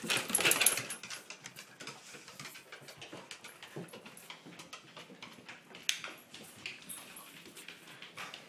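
Cavalier King Charles spaniel snoring loudly in its sleep: one loud snore in the first second, then quieter sound with many small clicks and one sharper click about six seconds in.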